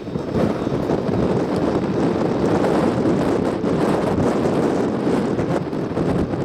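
Blizzard wind blowing hard and buffeting the microphone in a loud, steady rumble.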